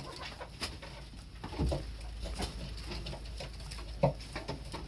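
Chickens in a coop clucking with short, scattered calls, a louder one about a second and a half in and another about four seconds in, among light scattered clicks.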